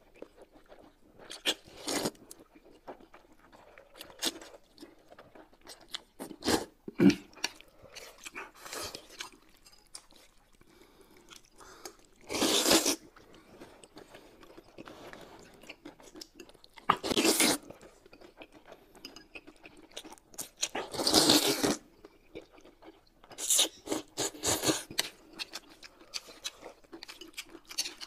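Close-miked eating: smacking chewing and small mouth clicks, broken by four or five loud slurps, each lasting up to about a second, as wide flat mianpi noodles in sesame sauce are sucked up and soup is sipped.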